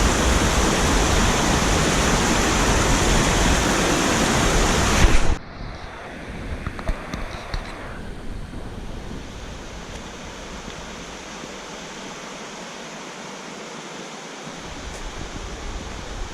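Rushing water of a mountain stream: a loud, close hiss that cuts off suddenly about five seconds in, giving way to a softer, steady flow with a few faint clicks.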